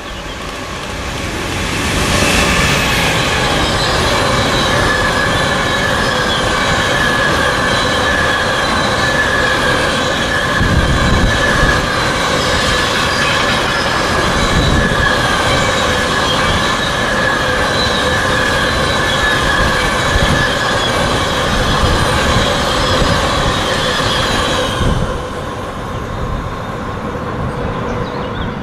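A freight train hauled by a BR186 electric locomotive running past with a long rake of car-transporter wagons. The wheels and wagons make a steady rolling noise under a sustained high-pitched wheel squeal. The sound drops off about 25 seconds in as the last wagons go by.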